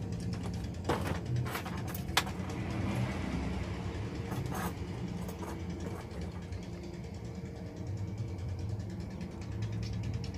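Small sharp clicks and taps as wires, a circuit board and a soldering iron are handled during soldering, several within the first five seconds, over a steady low hum.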